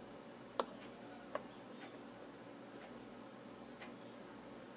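Quiet room with two sharp clicks in the first second and a half and a few faint ticks later, from a makeup brush and powder blush compact being handled as blush is picked up on the brush.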